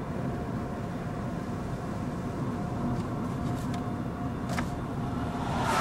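Road noise of the chase vehicle heard from inside the cab, with a distant tornado warning siren sounding one steady note that fades out for a moment and comes back.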